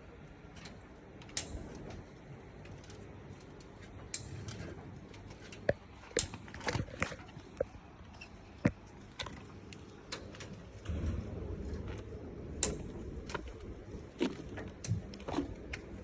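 Irregular sharp clicks and light knocks, typical of hand work on steel reinforcing bars (rebar), over a faint low rumble.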